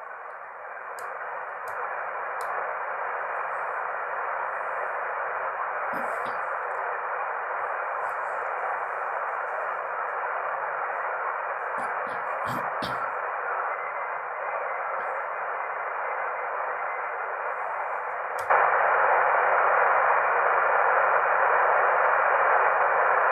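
Hiss of an Icom IC-R71E shortwave receiver's audio on the 20 m band, fed through a bhi NEIM1031 DSP noise-cancelling unit, with the treble and bass cut off. A few control clicks come about 6 s and 12–13 s in, and about 18 seconds in the hiss suddenly gets much louder.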